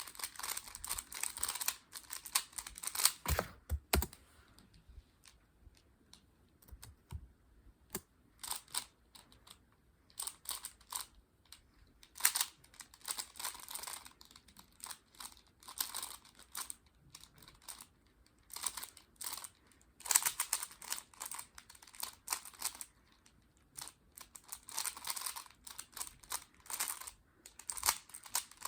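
3x3 Rubik's speedcube being turned fast during a speedsolve: bursts of rapid plastic clicking and clacking layer turns with brief pauses between. Two dull knocks come about three to four seconds in.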